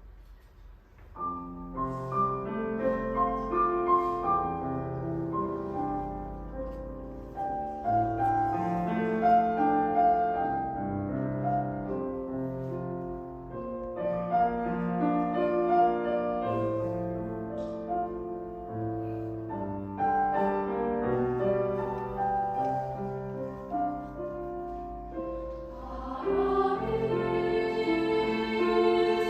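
A choir singing a slow piece, starting about a second in and growing fuller and louder near the end.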